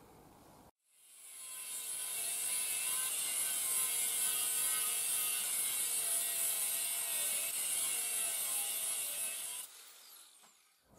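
Angle grinder with a cut-off disc cutting through a steel rod: it spins up about a second in, runs loud and steady with a high hiss and a wavering whine through the cut, then drops away sharply near the end and winds down.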